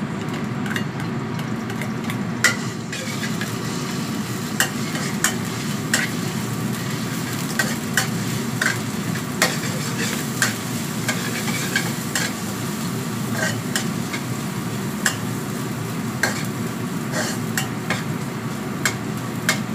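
Small dried shrimp frying in oil in a wok, sizzling steadily while being stirred with a metal ladle-spatula that clicks and scrapes against the wok at irregular intervals, roughly once a second.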